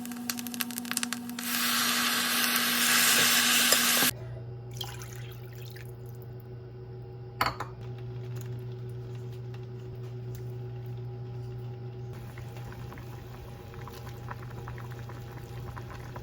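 Kitchen tap running into the sink for a couple of seconds, stopping abruptly about four seconds in, followed by light clinks of dishes and utensils over a steady low hum.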